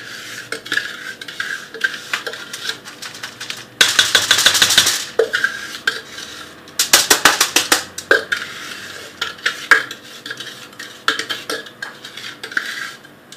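A kitchen utensil scraping and clinking against a bowl as butter-mixed Oreo cookie crumbs are emptied out of it. Scattered clicks run throughout, with two louder stretches of rapid scraping about four and seven seconds in.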